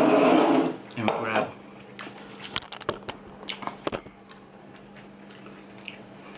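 Ceramic plates and bowls clinking and knocking against each other as food is moved onto a small plate, with a run of sharp clinks in the middle. A short louder sound comes right at the start.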